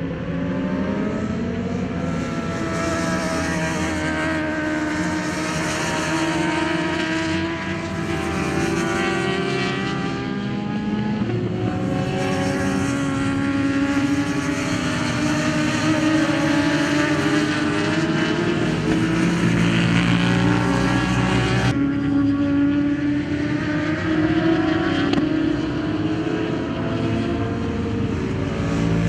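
Sport motorcycle engines running at high revs on a race track, their pitch rising and falling as the bikes accelerate, brake and change gear through the corners. The sound breaks off and changes abruptly about three-quarters of the way through.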